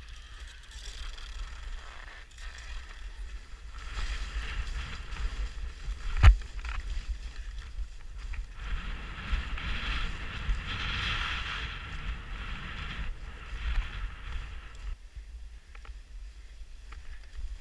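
Skis carving and scraping through choppy, chopped-up snow, a swelling hiss that is strongest toward the middle of the run, over a low wind rumble on the microphone. A single sharp knock comes about six seconds in.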